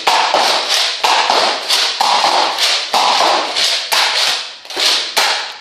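Nerf blaster fired over and over in quick succession, about two to three shots a second, each a short sharp burst, until the shooting stops near the end as the blaster runs out of darts.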